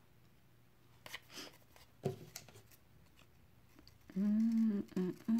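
Scissors snipping through black paper a few times, faintly. About four seconds in, a woman's voice gives a short held sound and then two brief ones.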